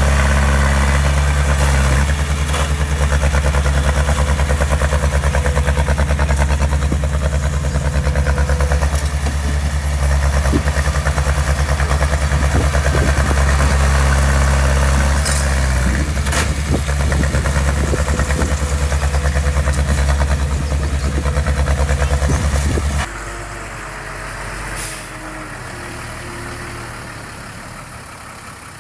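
Diesel engine of a heavy construction machine running steadily at close range, a deep, even throb. About 23 seconds in it cuts abruptly to a quieter, more distant engine sound.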